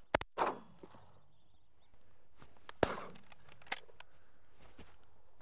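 Several shotgun shots fired at passing ducks, about five sharp cracks at uneven intervals, the last near the end the loudest.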